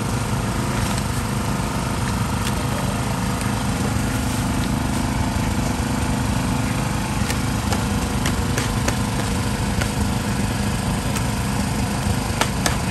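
A small engine runs steadily with an even drone. A few sharp clicks sound over it in the second half, most of them near the end.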